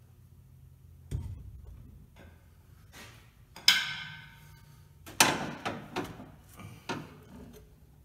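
Hand chain hoist lowering a Chevy 350 crate engine: a series of metal clanks and chain rattles, the two loudest a little past the middle, one ringing briefly.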